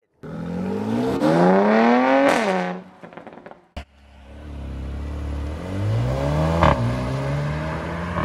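Mercedes-AMG A35's turbocharged four-cylinder engine accelerating hard: revs climb steeply, drop sharply with a crack at an upshift, and a brief run of exhaust pops follows as the throttle lifts. About halfway through it pulls hard again, rising to a second upshift with a crack, then runs on more steadily.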